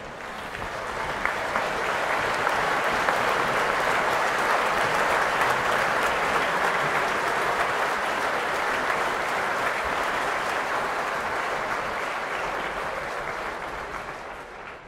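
Large stadium crowd applauding, swelling over the first couple of seconds, holding steady, and dying away near the end.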